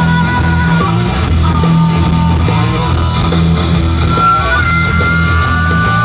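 Live blues-rock band through a PA: electric guitars, bass and drums, with a harmonica playing long held notes over the top.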